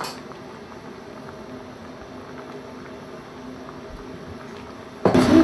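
Steady low kitchen background: a faint hum with a soft hiss, and a woman's voice starting near the end.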